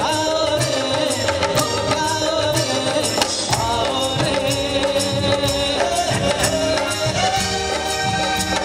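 Live band playing a rhythmic 1980s Bollywood song, hand percussion keeping a steady beat under a held, wavering melody line, with a male singer's voice over it.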